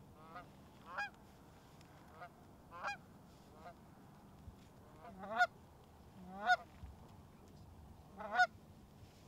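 Canada geese honking: single short honks about a second apart, each with an upward hook in pitch, louder in the second half.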